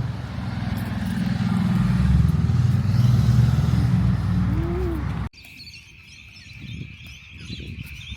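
A motor vehicle's engine running close by, its low rumble swelling about two seconds in. It cuts off abruptly a little past five seconds, leaving a steady high-pitched insect trill over faint rustling.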